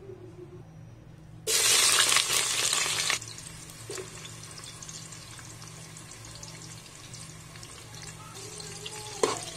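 Sliced onions dropped into hot oil in an aluminium pot. A loud burst of sizzling starts about a second and a half in, then after a couple of seconds settles to a steady, softer sizzle as the onions fry.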